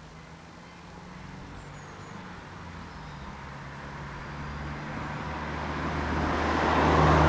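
A motor vehicle's engine hum and road noise growing steadily louder as it approaches.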